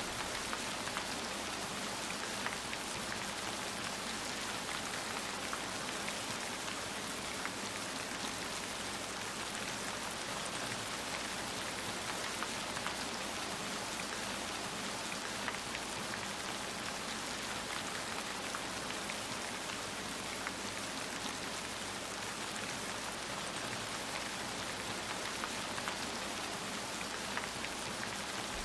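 Heavy rain falling steadily, an even hiss of drops on surfaces with faint scattered drop ticks.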